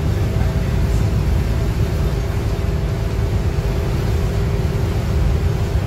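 Cummins ISM inline-six diesel of a Neoplan AN440 transit bus cruising steadily at about 68 mph, heard inside the cabin: a deep, even rumble mixed with road noise and a few faint steady whining tones.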